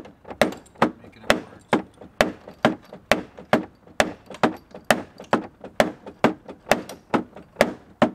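Hammer blows, about two a second, on a wooden stick set against a seized piston of a Studebaker 259 V8: the piston in the rust-filled cylinder is being driven down to break the engine loose.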